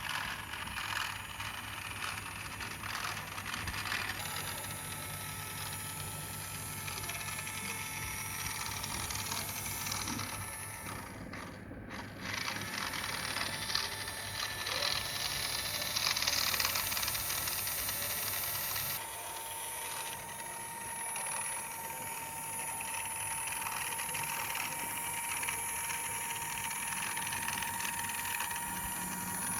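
Toy remote-control car's small electric motor and plastic gears whirring and rattling as it drives, with abrupt changes about twelve and nineteen seconds in.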